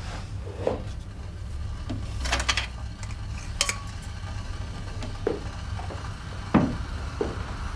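Kitchen cabinet and dishes being handled: scattered clinks of crockery and light knocks, the loudest knock about two-thirds of the way through, over a steady low hum.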